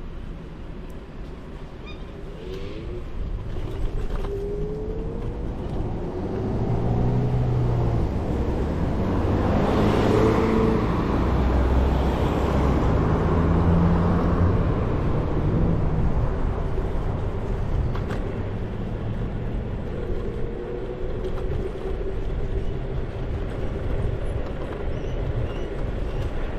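Street traffic: a car passes, swelling to its loudest about ten seconds in and fading over the next few seconds, over a steady low rumble of road and wind noise.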